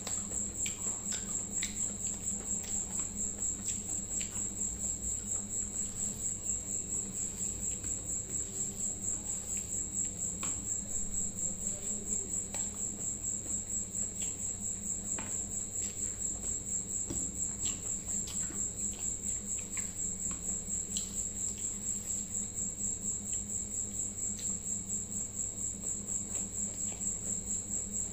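A cricket chirping steadily in a fast, even pulsing trill, high-pitched and loud over everything else. Faint scattered clicks of eating by hand, chewing and fingers working in rice, sit beneath it with a low steady hum.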